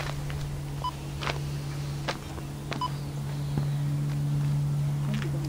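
A steady low hum of two close tones, louder in the second half, with a few short high beeps and faint clicks over it.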